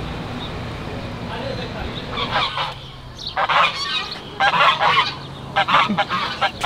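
Domestic waterfowl in a pen honking: a run of harsh calls in five or six bursts, starting about two seconds in.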